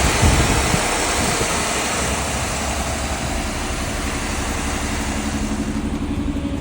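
1989 Chevy Caprice's 305 V8 idling steadily after a start on a new starter, its exhaust running through a new Flowmaster 44 Series muffler.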